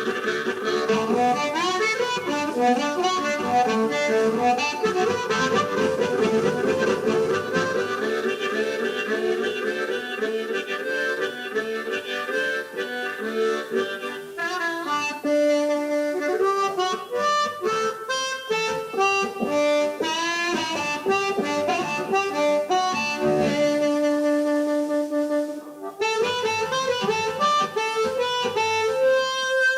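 Live blues band playing an instrumental break, a harmonica taking the lead with quick runs of notes and some long held notes.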